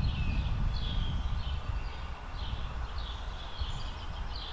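Small birds chirping repeatedly, short quick calls, over a steady low rumble.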